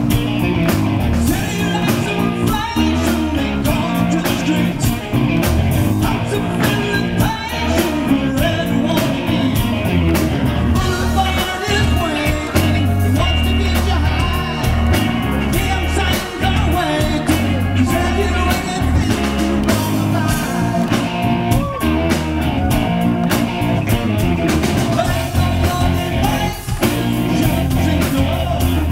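Live rock band performing: a male lead singer sings over electric guitar, bass and a drum kit, heard through the concert sound system.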